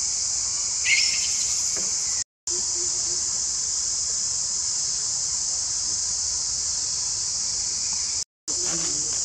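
Steady high-pitched drone of an insect chorus, with a brief shrill squeak about a second in. The sound cuts out completely twice for a split second.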